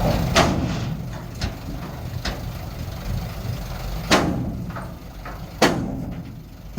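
Heavy diesel earthmoving machinery running low and steady, with about five sharp knocks at uneven intervals, the loudest about four and five and a half seconds in.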